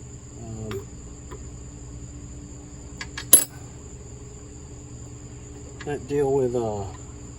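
Steady high-pitched chirring of crickets under a low hum, with one sharp metallic clink about halfway through. Near the end there is a brief wordless vocal sound from the worker.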